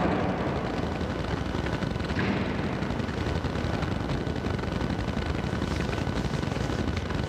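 Steady rumbling background noise at an even level, with a slight rise about two seconds in.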